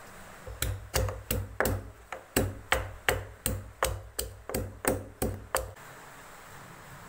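Pestle pounding garlic and ginger in a stone mortar: about fifteen heavy knocks with a dull thud, roughly three a second, which then stop.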